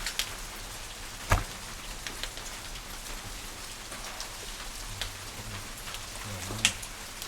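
Wood fire burning inside a traditional wood-fired kiln: a steady hiss of flame with scattered crackles and pops, the sharpest about a second and a half in and another near the end.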